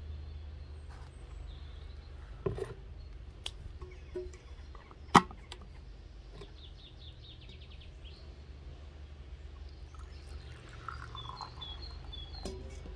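Garden birds chirping now and then over a low steady rumble, with a quick trill about six seconds in and several short chirps near the end. A few sharp knocks break in, the loudest about five seconds in.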